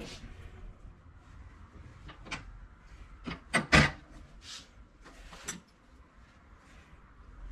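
Metal hand tools and clamps being handled on a wooden workbench: scattered clicks and knocks, with a few sharper clacks close together about three and a half seconds in.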